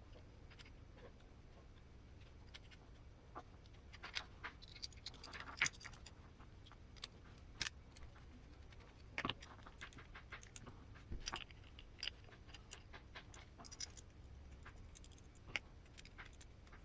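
Faint, irregular clicks and light taps of small metal parts and hand tools being handled while an RC car transmission is put together: motor, pinion and mount screws.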